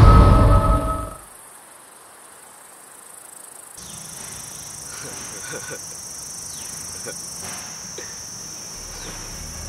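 A tense music cue fades out over the first second. After a near-quiet stretch, a steady high chirring of crickets comes in about four seconds in, with faint scattered chirps over it.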